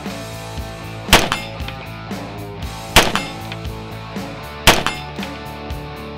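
DoubleStar ZERO Carbine, an AR-15 rifle, firing three single shots about two seconds apart, with background music underneath.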